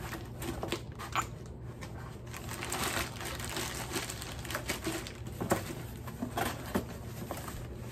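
Plastic packaging rustling and crinkling as a package is handled and opened by hand, with many small irregular ticks.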